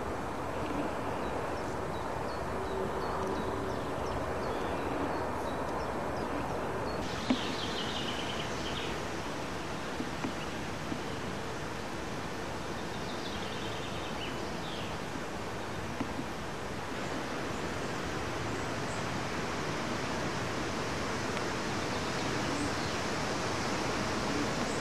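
Outdoor garden ambience: a steady rushing hiss of wind and recording noise, with a few faint bird chirps. There is a click about seven seconds in, where the background sound changes at an edit.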